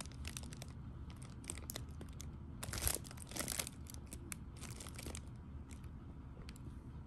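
Close rustling and crinkling of fabric and burlap bedding: irregular soft clicks and scrapes, with a louder burst about three seconds in.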